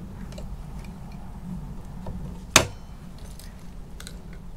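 Light metallic clinks and taps of a tool working on an e-bike's handlebar stem, with one sharp knock about two and a half seconds in.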